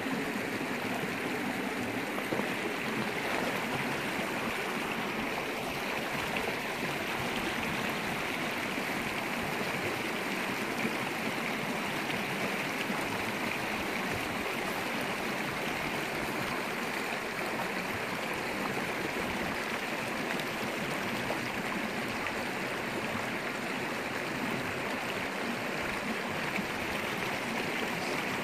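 Small rocky stream running over stones, a steady, even rush of water.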